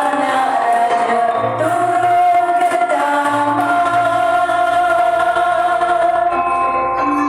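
Malay joget gamelan music: pitched tones held long over a low note that comes and goes.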